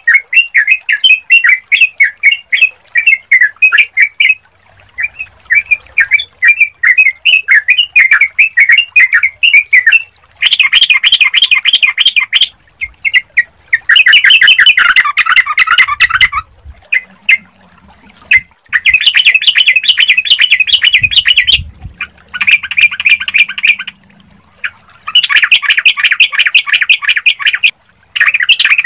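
Yellow-vented bulbul (trucukan) calling: rapid chattering notes, at first in a near-continuous string, then in dense bursts of two to three seconds separated by short pauses.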